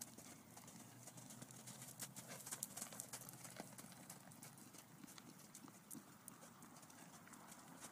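Faint, irregular hoofbeats of a horse moving around a pen on soft dirt.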